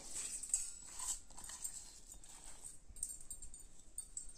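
Soaked raw rice tipped from a container into a steel bowl of water and scraped in by hand: a few soft wet taps and rustles against the steel in the first second and a half, then fainter handling.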